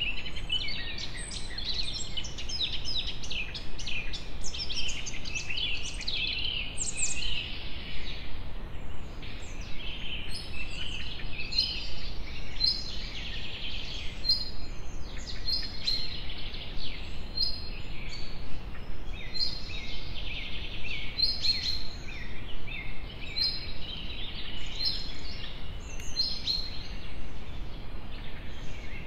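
Small birds chirping and calling throughout, with one repeating a short high note every second or so in the second half, over a steady low rumble.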